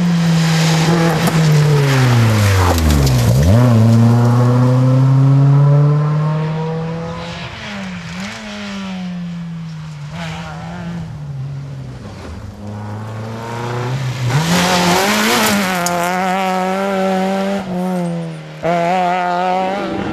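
Rally car engines revving hard on a stage, one car after another: the engine note swoops up and down through lifts and gear changes, with a deep drop and climb about three seconds in and more shifts later.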